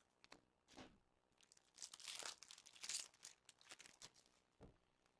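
Faint crinkling and tearing of a hockey-card pack wrapper being opened by hand, with a few light clicks of cards being handled.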